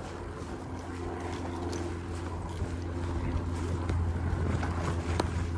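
Electric mountain bike rolling fast down a dirt trail: wind buffeting the microphone over a steady tyre rumble, with a faint steady hum for a couple of seconds and a few sharp rattles over bumps near the end.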